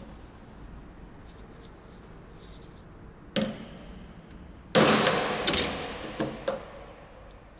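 A hammer striking a metal punch held on a workpiece on a wooden block. Two blows about a second and a half apart, the second the loudest and ringing on, then a few lighter taps.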